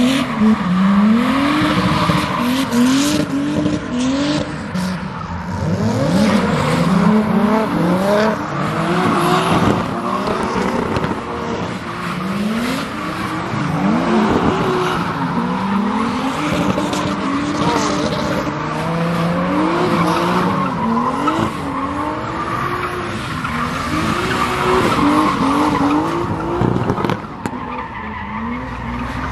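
A car engine revving hard again and again, its pitch climbing and dropping every second or two, over the steady screech of spinning tyres: a car drifting or doing donuts.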